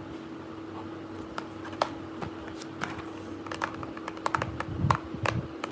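A run of irregular light clicks and taps, sparse at first and quickening over the last two seconds, over a steady low hum.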